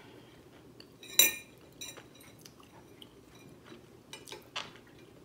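Metal chopsticks clinking and scraping against a ceramic plate: one sharp clink about a second in, then a few softer ticks.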